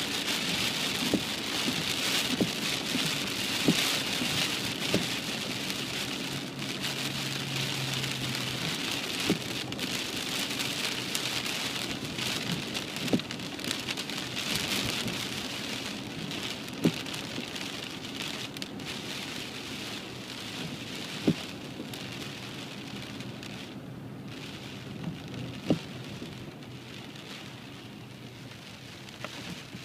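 Heavy rain pattering on a car's roof and windscreen, heard from inside the moving car, with a sharp tap every few seconds. The rain slowly eases toward the end.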